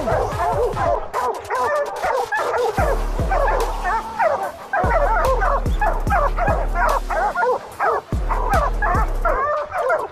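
A pack of bear hounds barking and baying up a tree, several dogs at once, the sign of a bear treed. Music with a deep bass beat plays over them.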